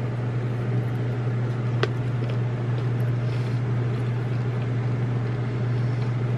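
Steady low mechanical hum with an even whooshing air noise from a machine running nonstop, with a faint click about two seconds in.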